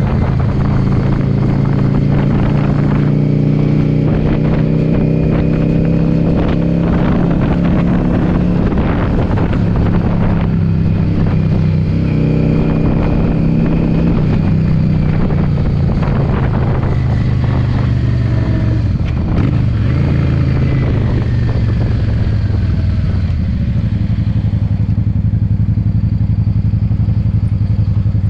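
Yamaha V-Star motorcycle's V-twin engine under way, its pitch climbing as the bike accelerates, with a gear change about twelve seconds in. From about two-thirds of the way through, the engine note falls as the bike slows, settling to a lower steady run near the end.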